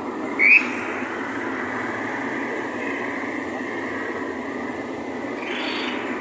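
Steady outdoor din of an excavator's engine running amid a crowd, with one short, high, rising chirp about half a second in.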